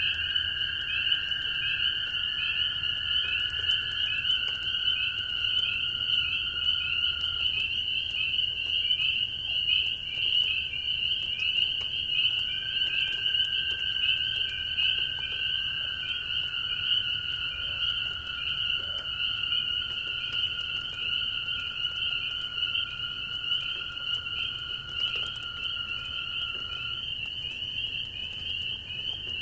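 A dense chorus of spring peepers: many overlapping high, short, rising peeps. Under it, toads trill in long steady trills, with a break in the trilling in the middle. Light rain patters.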